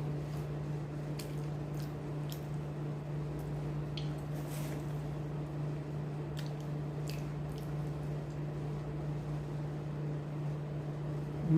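A person chewing a date, with faint wet clicks of the mouth, over a steady low hum.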